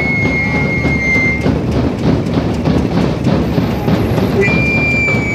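Large barrel drums beaten in a fast, dense rhythm, with crowd noise under it. A high steady tone sounds in the first second and a half and again near the end.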